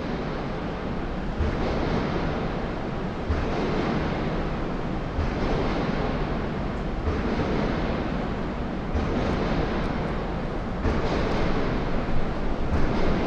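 City ambience among high-rise tower blocks: a dense, steady wash of distant construction and city noise reverberating off the buildings, with occasional low thumps.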